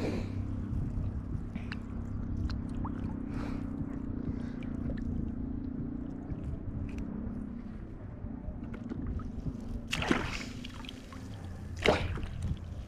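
Shallow seawater sloshing and splashing, with two louder splashes near the end, over a steady low hum.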